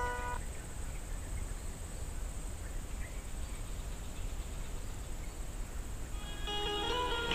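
Outdoor background with a steady high-pitched insect drone over a low rumble. Background music dies away just after the start and comes back in about six and a half seconds in.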